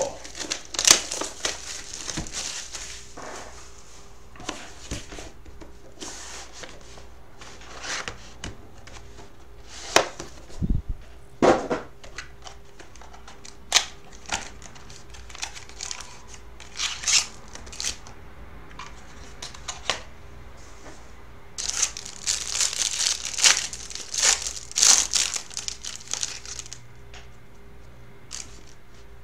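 Clear plastic shrink wrap and trading-card pack wrappers crinkling and being torn open by hand, in irregular bursts. The busiest stretch comes about three quarters of the way through.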